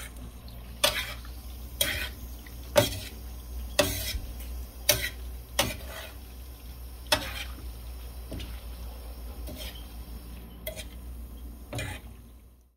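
A metal fork clinks and scrapes against a metal pan while tossing ribbon pasta in sauce: sharp clinks about once a second, over a low steady hum. The sound cuts off suddenly near the end.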